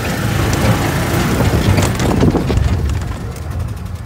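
Golf cart driving fast over wet grass: a steady rumble of tyres and drivetrain, with wind buffeting the microphone. It eases off about three seconds in, and a fast, even ticking comes in near the end.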